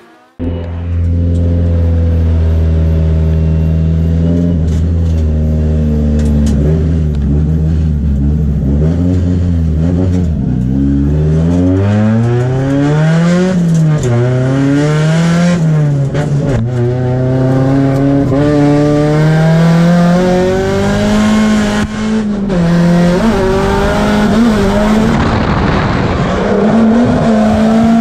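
A drift car's engine heard from inside the cabin. It starts abruptly and holds a steady note for about ten seconds. The revs then rise and fall several times before being held higher and wavering under throttle, with tyre noise growing near the end.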